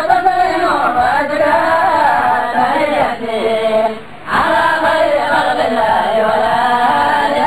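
Arabic devotional singing: a qasida in praise of the Prophet Muhammad, sung in long, wavering held notes, with a short pause about four seconds in.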